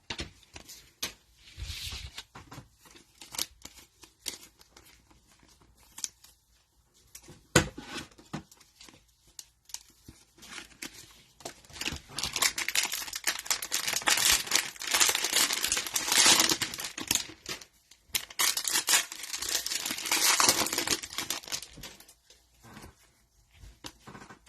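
Cellophane wrapper of a trading-card cello pack being torn open and crinkled, in two long stretches of rustling in the second half, after scattered light clicks and taps from handling.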